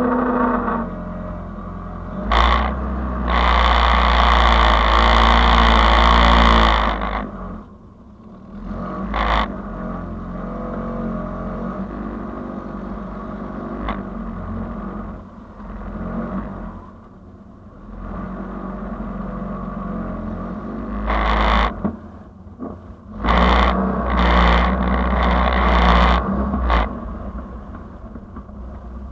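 Car engine running slowly, heard through a bonnet-mounted camera, with loud rushing bursts lasting a few seconds each, one near the start and another near the end, and shorter ones between.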